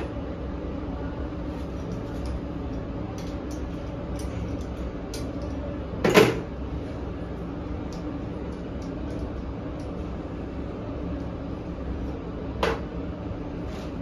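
Knocks and clicks of hands handling a porcelain bushing's terminal fittings and a rubber cover, with one sharp loud knock about six seconds in and a softer one near the end, over a steady background hum.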